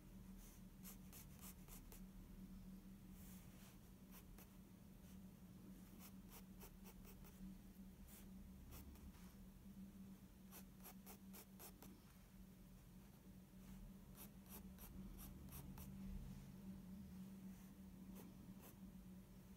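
A soft 6B graphite pencil scratching on sketchbook paper in flurries of short, quick hatching strokes with brief pauses between them, over a faint steady low hum.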